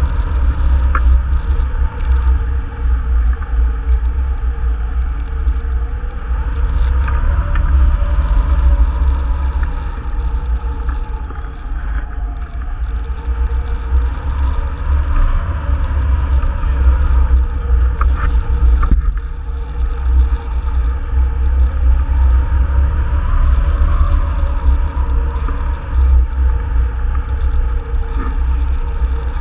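Wind from a hang glider's flight blowing over the wing-mounted camera's microphone: a loud, steady, buffeting low rumble that swells and eases, with faint wavering higher tones above it.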